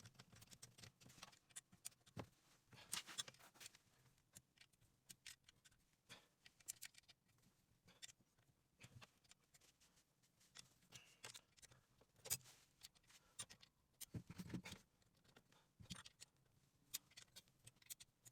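Faint, irregular metal clicks and scrapes of a hand tool working the bolts of an aluminium motorcycle clutch cover, tightened by hand.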